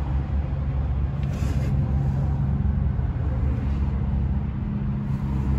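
Steady low engine-like hum, unchanging, with no distinct clicks or tool sounds.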